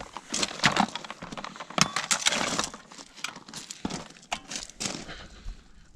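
Irregular clattering: sharp knocks and clinks with scraping and rustling between them, the sound of gear being handled.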